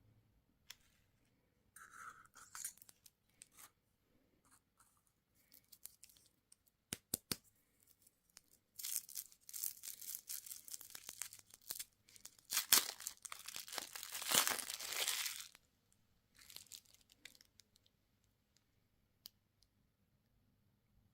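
Candy wrapper being torn open and crinkled: scattered crackles and clicks at first, then a loud stretch of tearing and crinkling that starts about nine seconds in and lasts around six seconds.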